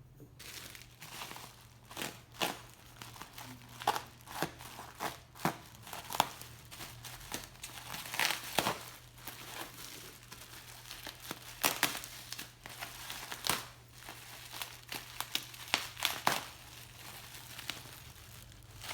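Packing material being unwrapped: irregular crinkling, rustling and tearing with sharp crackles throughout.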